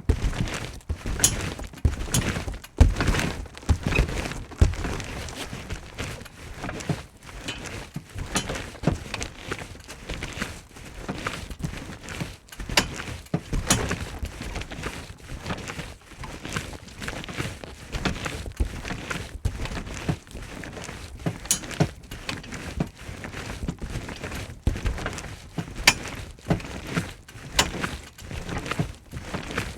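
Someone jumping on a trampoline: repeated thumps of landings and take-offs on the rubbery mat, coming quickly and unevenly.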